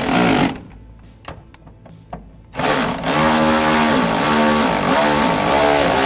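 Cordless electric ratchet with a T30 Torx socket snugging up the side mirror's mounting screws. It runs in two bursts: a short one that stops about half a second in, then a longer run from about two and a half seconds in, its whine rising and falling in pitch.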